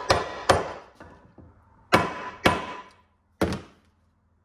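Rubber mallet striking a length of 2x6 laid over a sealed ball bearing, pounding the bearing down into the top of a riding mower's deck spindle housing. Five separate knocks at uneven spacing, each dying away quickly.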